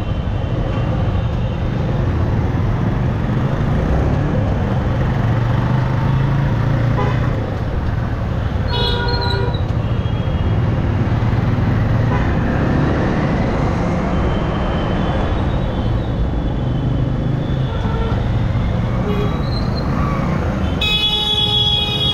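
Yamaha R15M motorcycle ridden through road traffic: a steady low engine and road rumble, with a vehicle horn honking briefly about nine seconds in and again, longer and louder, near the end.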